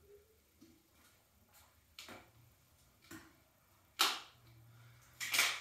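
Handling noises as a water bottle is put down and a jump rope picked up: a few light knocks and clicks, a sharper knock about four seconds in, and a short rattle near the end.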